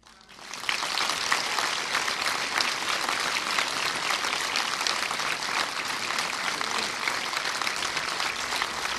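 Audience applauding. The clapping breaks out about half a second in, swells quickly and then holds steady as dense clapping from many hands.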